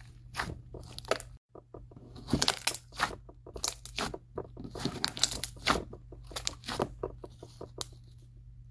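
Cereal slime being squished and poked by hand, giving rapid irregular crackling pops and crunches, with a short break about a second and a half in; the pops come from air bubbles bursting in the slime.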